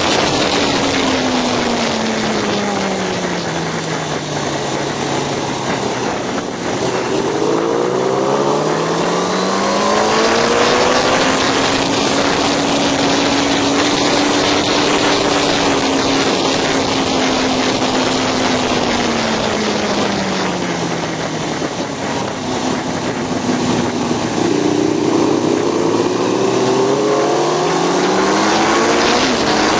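Racing motorcycle engine at speed, heard from on board with steady wind rush: its note drops as the bike slows for a corner, climbs again in steps through upshifts, holds high down a straight, then drops and climbs once more near the end.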